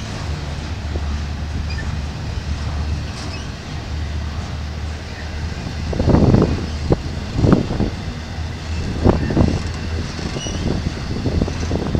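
Double-stack intermodal freight train rolling slowly past: a steady low rumble, with several heavy thumps from about six to nine and a half seconds in as the well-car wheel trucks go by.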